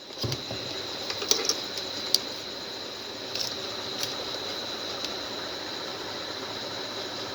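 Hot air rework station blowing steadily on a phone circuit board, with a few light ticks in the first few seconds.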